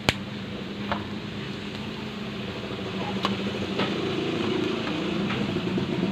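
Chunks of pork fat deep-frying in hot oil in a wok, fried a second time to crisp them into chicharon: a steady sizzle with a few sharp pops, a little louder from about three seconds in, over a steady low hum.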